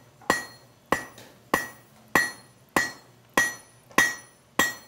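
Hand hammer striking red-hot steel on an anvil: eight even blows, about three every two seconds, each with a short metallic ring. A blacksmith drawing out the steel bar.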